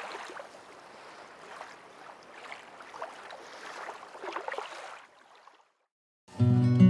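Faint wash of water, like small waves lapping, with irregular splashy flickers; it fades out about five seconds in. Acoustic guitar music starts loudly near the end.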